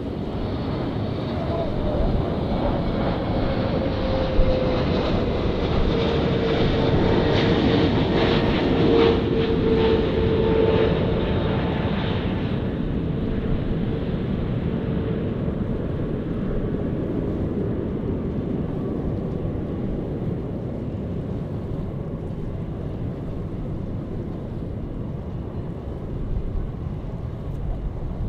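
Jet airliner passing close by: the engine noise swells to a peak about nine seconds in while a whine slides down in pitch as the aircraft goes past, then the rumble slowly fades.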